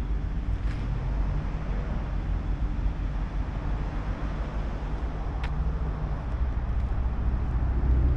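Steady low rumble of motor vehicles running, like road traffic, with a faint click about five and a half seconds in.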